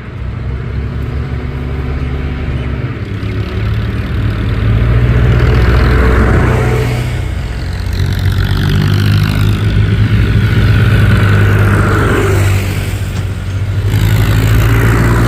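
Backhoe loader's diesel engine running and revving up and down in surges as it works, with a higher whine rising and falling over it in the middle.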